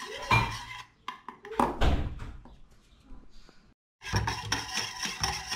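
Wire whisk scraping and clinking against a metal saucepan as a cocoa-and-milk mixture is beaten, with a few heavier knocks about a second and a half in. After a short silent gap near four seconds in, quick, even whisk strokes rattle against the pan.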